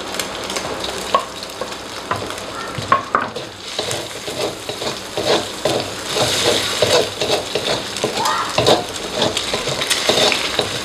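Chopped garlic and bird's-eye chilies sizzling in hot oil with half-cooked egg in a wok. A few clicks come in the first seconds, and from about four seconds in a metal spatula scrapes and stirs quickly against the wok.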